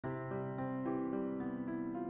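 Intro background music: a keyboard melody with a new note about every quarter of a second over held lower notes.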